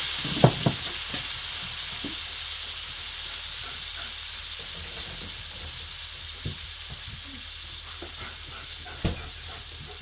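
Sliced ribeye, peppers and onions sizzling on an electric griddle, wet from jalapeno juice just poured on, the hiss easing off slowly. A few sharp clicks and clacks sound over it, the loudest about half a second in and another near the end.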